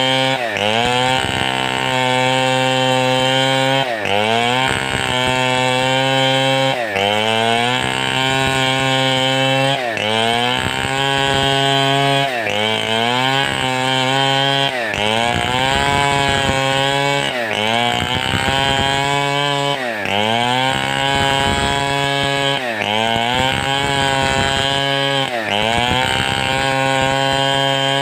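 Large two-stroke chainsaw running hard, its engine pitch repeatedly dipping and climbing back every one to three seconds as the saw is swung through the cut.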